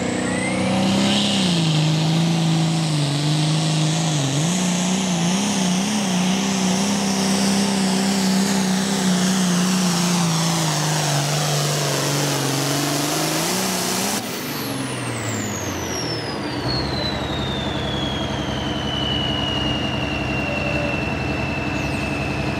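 Super farm pulling tractor's turbocharged diesel engine held at full throttle pulling the sled, revs wavering as it fights for traction. About 14 seconds in the throttle is cut, and the turbocharger's high whine falls slowly in pitch as it spools down over the engine running at low revs.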